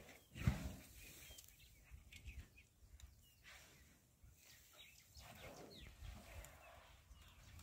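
African elephant giving a short low call about half a second in, with a softer call around five to six seconds in and faint bird chirps between.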